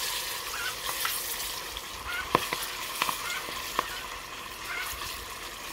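Floured buttermilk-soaked chicken drumstick frying in oil at about 180 °C in a camp oven. The oil sizzles with a steady hiss that swells as the chicken goes in, and sharp pops and spits break through it.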